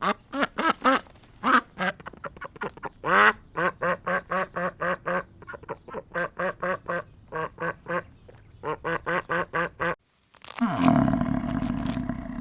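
Ducks quacking in quick runs of short, even quacks, about four or five a second with brief pauses. After a short break near the end, a different long, loud, low sound starts.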